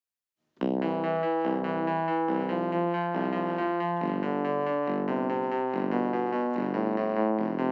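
Instrumental music that starts abruptly about half a second in, out of dead silence: keyboard-like chords changing in a steady rhythm about twice a second.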